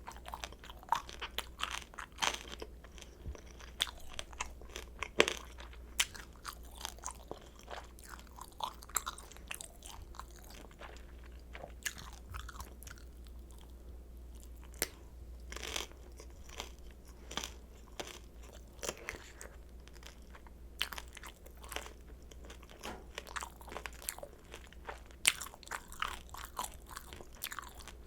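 Close-miked crunching and chewing of pan-fried kimchi dumplings, with sharp crackles from the crisp fried wrappers throughout.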